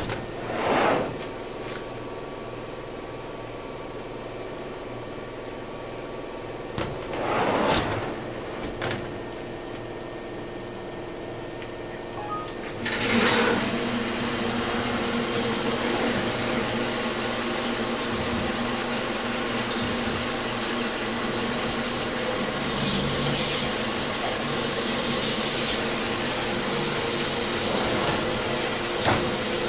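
Milling machine running with a steady hum. About halfway through, flood coolant comes on and sprays steadily over the workpiece and the drill, as the machine drills the block's mounting holes.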